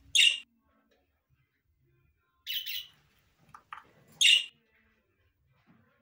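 Budgerigar giving three short, harsh chirps about two seconds apart, the second a quick double note.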